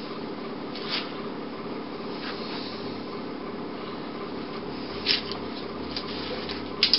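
Room tone: a steady low hum, with three short faint rustling sounds, about a second in, near five seconds and at the very end.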